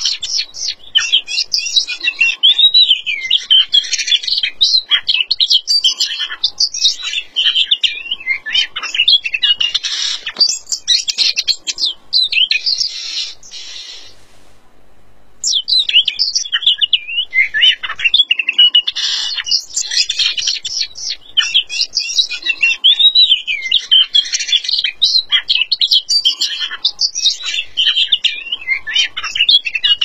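Oriental magpie-robin singing a loud, rapid song of varied phrases, pausing briefly about halfway through.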